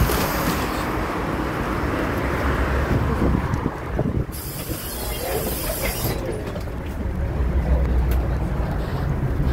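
City bus engine running with road noise, mixed with knocks of a handheld phone as someone climbs aboard; the low engine rumble grows louder near the end, heard from inside the bus.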